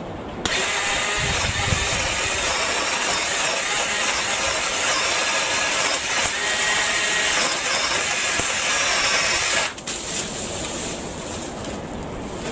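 BLACK+DECKER 18V battery-powered saw running and cutting through a tree branch. It starts suddenly about half a second in, runs steadily for about nine seconds and stops abruptly.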